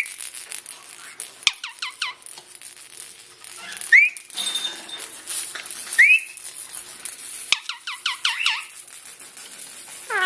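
Pet parrot whistling and chirping. Two runs of quick falling whistles are heard, with single rising chirps between them.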